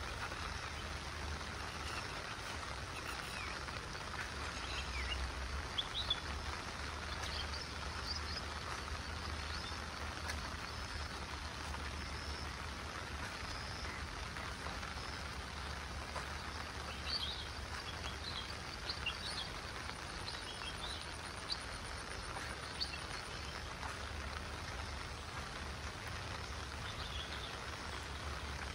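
Steady monsoon rain hiss, with birds chirping now and then and a short, rapid, high trill about two-thirds of the way in.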